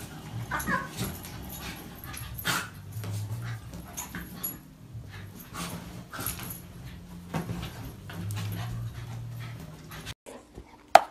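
A dog play-fighting with a cat: low growling in spells, a short whine about half a second in, and scuffling on the bedding. It cuts off about ten seconds in.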